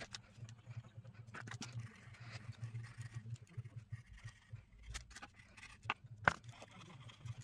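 Faint scratching and scraping of a pastel pencil drawn across Pastelmat paper in irregular strokes, with a few small clicks and one sharp tap about six seconds in. A low steady hum runs underneath.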